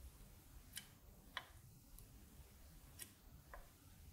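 Near silence with a few faint, irregular small clicks, about five in all, as a soldering iron and solder wire work the pins of an IC socket on a circuit board.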